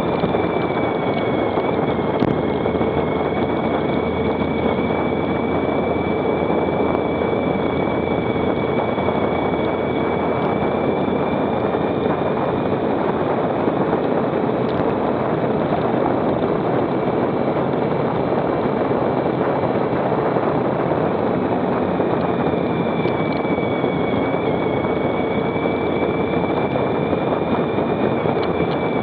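Motorcycle on the move at a fairly steady speed: a constant rush of wind and road noise with the engine's steady hum. The hum's pitch dips slightly twice.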